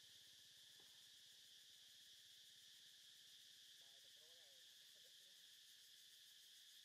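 Near silence with a faint, steady, high-pitched insect chorus. A faint, brief wavering call comes about four seconds in.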